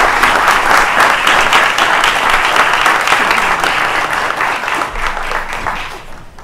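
An audience applauding, many hands clapping together; the applause dies away near the end.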